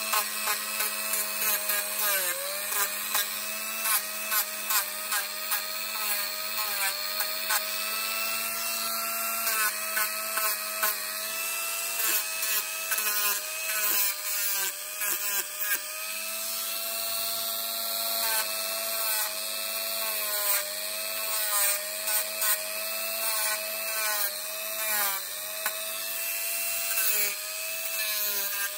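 Dremel rotary tool with a sanding drum running in a steady whine, grinding a dog's toenails, with many short rasps as the nail is dabbed against the spinning drum. The whine's pitch sags briefly now and then as the drum is pressed onto the nail.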